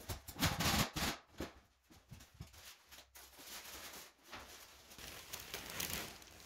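Masking paper and painter's tape being peeled off a wall at the ceiling edge, the paper crinkling and rustling in uneven bursts, loudest about half a second in and again near the end.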